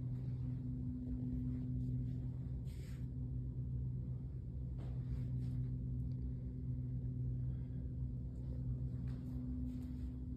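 Steady low room hum with a constant deep tone, and a brief soft hiss or rustle about three seconds in.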